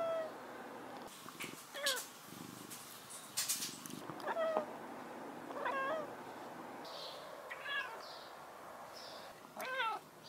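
A long-haired gray domestic cat giving about six short meows a second or two apart, each with a wavering, bending pitch.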